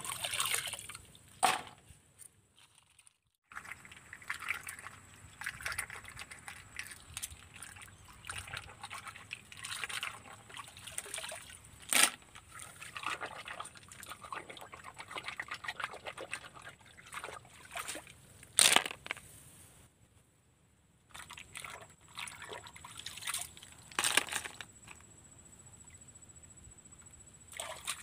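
Water splashing and sloshing as hands rinse freshwater field snails in a shallow muddy stream, with three sharp louder splashes standing out and the sound dropping out briefly twice.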